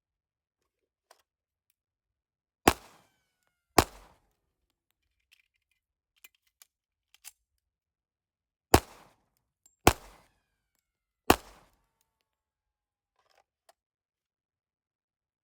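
Norinco 1911 A1 pistol in .45 ACP firing five shots: two about a second apart, then after a pause of about five seconds three more in quicker succession, with faint clicks between.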